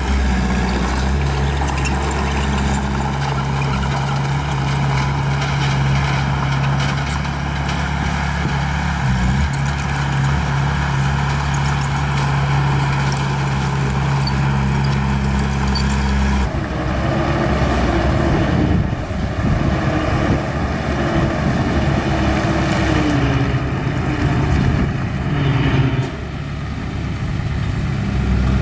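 Old small bulldozer's diesel engine running steadily under load. More than halfway through, the sound changes abruptly to a rougher, wavering machine noise with squeals coming and going.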